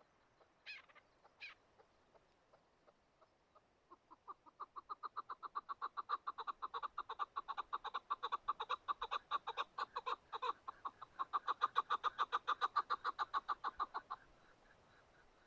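Chukar partridge calling: a long, rapid run of clucks, about seven a second, that builds in loudness and then stops abruptly.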